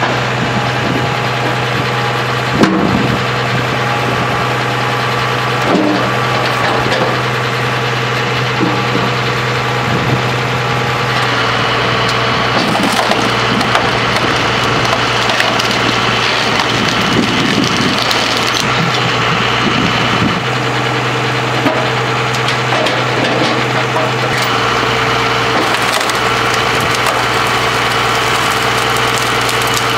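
Binderberger Gigant 30 Z log splitter, driven off a Case 956XL tractor, pushing logs through its splitting cross: wood cracks and splinters sharply at intervals, loudest about three seconds in, over the steady hum of the tractor engine and splitter drive.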